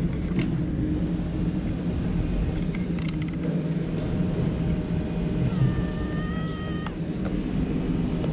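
Brown tabby cat purring with a steady low rumble while rubbing against legs and the camera at close range. About six seconds in comes a short, level, high mew that stops abruptly.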